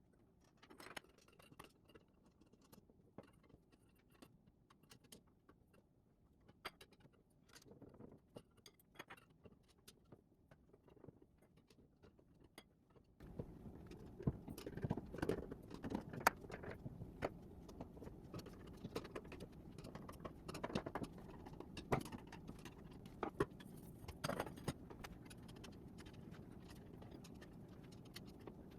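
Faint, scattered clicks, taps and light rattling of trellis pieces being handled and fitted together during assembly. About halfway through, a steady background hum comes up under the clicks.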